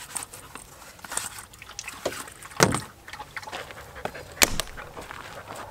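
Irregular light knocks and clicks of things being handled, with two louder thumps about two and a half and four and a half seconds in.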